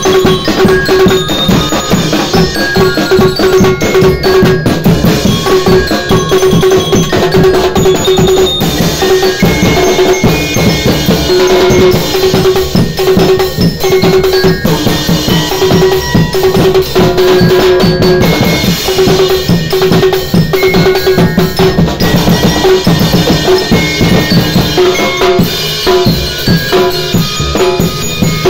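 Street percussion band playing a steady driving beat on snare and tom drums, large barrel bass drums and a cymbal. A metal-barred glockenspiel struck with mallets rings out short bright notes over the drums.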